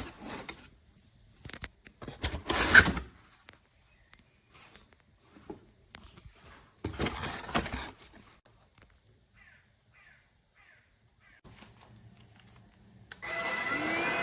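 Scattered handling clicks and a few short noisy bursts, the loudest about three seconds in. Near the end, a Stanew 22.2V 150W cordless stick vacuum's motor switches on, its whine rising in pitch as it spins up over a steady rush of air.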